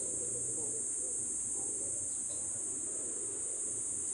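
A steady, high-pitched insect drone, unbroken and unchanging, with a faint low murmur beneath it.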